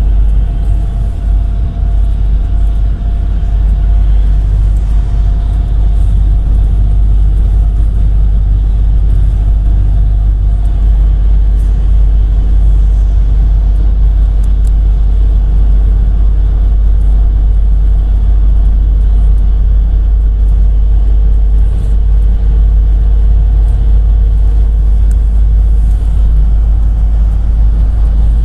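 GAZelle Next (GAZ-A65R52) minibus driving, heard from inside the passenger cabin: a steady low rumble of engine and road noise. A faint whine rides over it and sits lower in pitch through the middle part.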